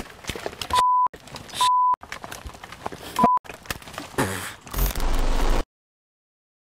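Three short, steady censor bleeps at one fixed pitch, amid scattered clicks and knocks. The sound cuts to dead silence about a second before the end.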